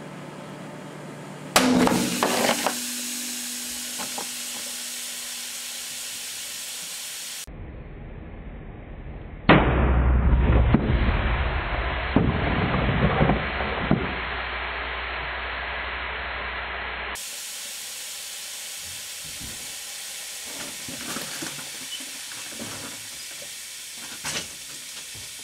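A microwave oven hums, then a container of The Works toilet bowl cleaner explodes inside it about one and a half seconds in with a sudden, very loud bang, followed by hissing. The blast comes again slowed down as a deep, drawn-out boom with a low rumble. Then there is steady hissing with scattered crackles from the blown-up cleaner in the oven.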